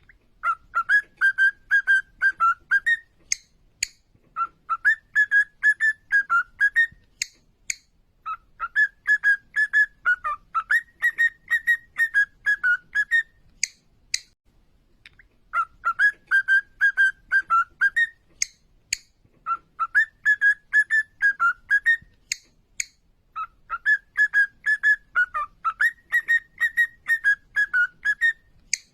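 Cockatiel whistling its song: phrases of a few seconds each, made of quick warbled notes, repeated six times with short pauses. Brief sharp high chirps fall between the phrases.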